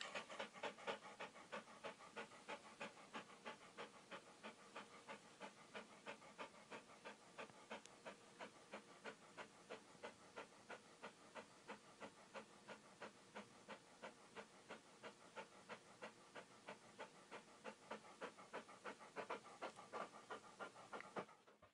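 A dog panting: faint, quick, even open-mouthed breaths, about three a second.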